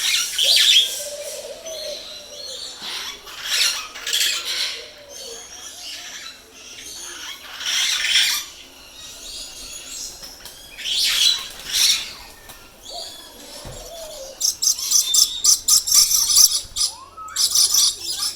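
Parrots screeching: loud, harsh calls about every three or four seconds, then a fast run of shrill calls near the end.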